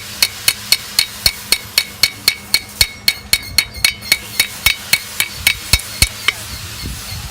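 Blacksmith's hammer striking a hot steel leaf blank on an anvil in a steady run of quick blows, about three to four a second. Each blow rings. The hammering stops about six seconds in.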